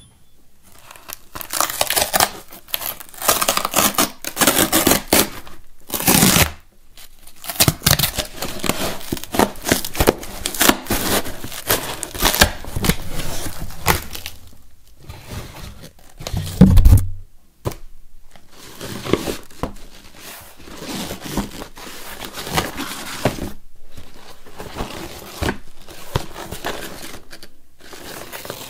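Cardboard shipping box being opened and handled with gloved hands: irregular rustling, scraping and tearing of the cardboard packaging, with one loud dull thump a little past the middle as something is set down.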